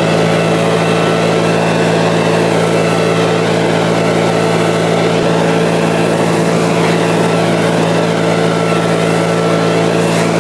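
DCA ACF19 backpack leaf blower's 76 cc four-stroke engine running steadily at high revs, with the rush of air from its long blower tube.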